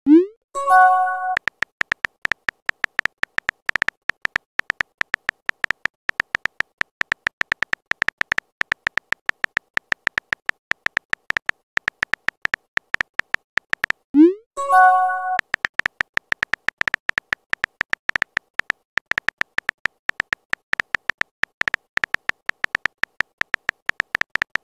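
Rapid, evenly spaced keyboard-tap clicks of a texting-story app typing out a message. Twice, at the start and about 14 seconds in, a short rising whoosh and a brief chime of a few tones mark a message being sent, then the clicking resumes.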